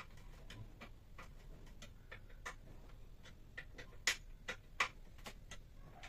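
Narrow hand chisel cutting and scraping into a small block of wood, giving irregular sharp clicks and ticks a few times a second, two of them louder about four and five seconds in.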